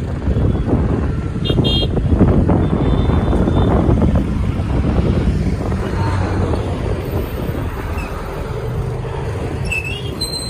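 Steady low rumble of road traffic crossing a bridge, dense and buffeting, with a brief high beep about a second and a half in.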